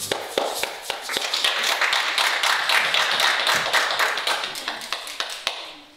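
Group of people clapping: a dense patter of hand claps that swells, then fades out shortly before the end.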